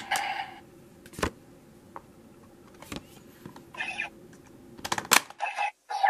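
Sharp hard-plastic clicks from a Dragvisor toy being handled, a few spaced a second or two apart and a louder cluster of snaps about five seconds in, over a low hum.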